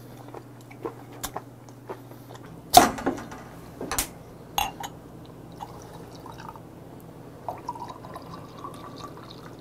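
A few sharp clinks and knocks of a glass beer bottle, then beer poured from the bottle into a glass for about the last two seconds, the pitch of the pour rising slightly as the glass fills.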